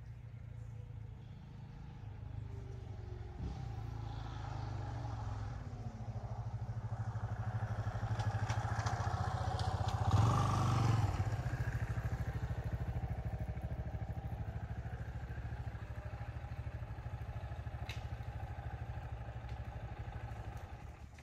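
A motor vehicle's engine running, growing louder to a peak about halfway through and then slowly fading.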